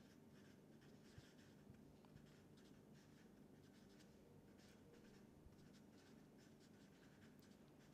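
Faint strokes of a felt-tip marker writing on paper, a run of short scratching strokes.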